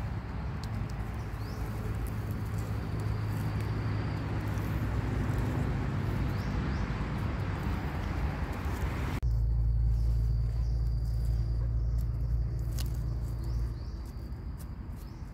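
A steady low rumbling noise that changes abruptly about nine seconds in and eases near the end. Over it come scattered crackles of dry leaf litter as mushrooms are pulled from the forest floor, and a faint steady high insect buzz.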